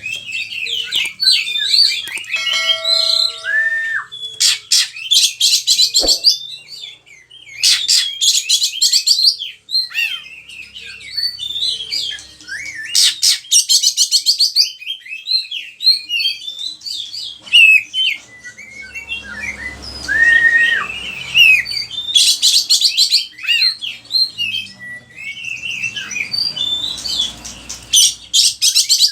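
Oriental magpie-robin (kacer) singing in full voice: a fast, varied run of whistles, chirps and buzzy rattling trills, with a few held whistled notes. It works through its repertoire of learned and imitated songs.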